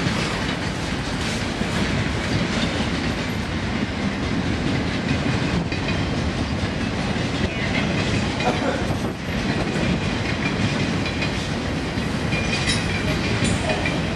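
Freight train passing: diesel locomotives go by at the start, then a long string of autorack cars, with a steady rumble of wheels on the rails. A faint thin wheel squeal comes in near the end.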